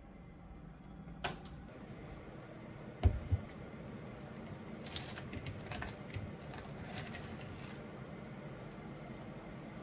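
Kitchen handling sounds: a sharp click, then a dull thump about three seconds in as a bowl is set down on a wooden cutting board, followed by scattered crinkling as plastic cling wrap is peeled off the bowl.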